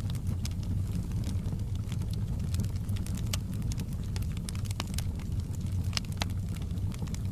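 Wood fire in a fireplace crackling: frequent sharp pops and snaps over a steady low rumble of the burning.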